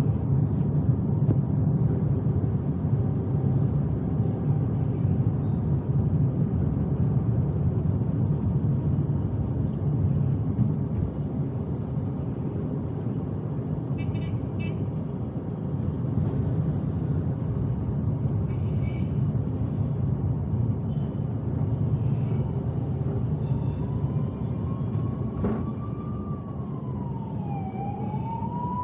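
Steady road and engine noise of a car driving through the city, with a short beep about halfway through. About 23 seconds in, a siren starts up, its pitch rising, dipping and rising again.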